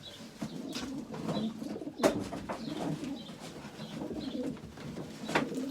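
Racing pigeons cooing in a loft, a low repeated murmur. Two sharp knocks cut through, the loudest about two seconds in and another near the end.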